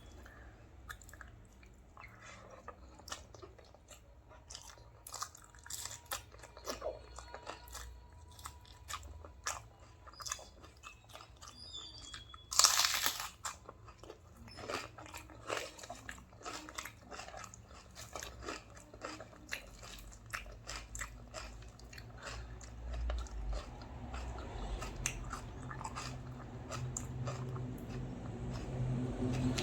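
Close-up eating sounds of a rice-and-curry meal: chewing, biting and crunching with many small wet mouth clicks, and one brief louder burst about halfway through.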